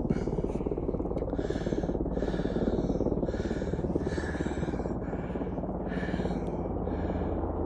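Helicopter rotor and engine running steadily, with a fast low beat from the blades.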